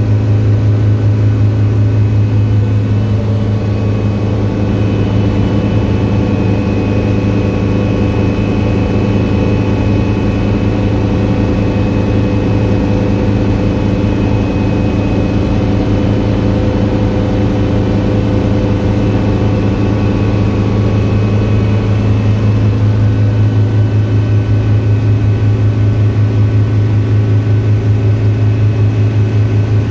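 Steady in-cabin noise of a Hughes 300 light helicopter in flight: the piston engine and rotor give a loud, unchanging low hum with a fast, even beat.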